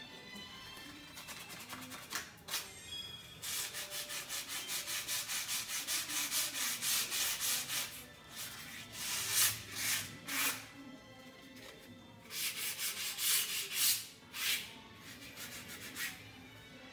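Quick back-and-forth rubbing strokes against a wall, about four a second, in several runs with short pauses between them.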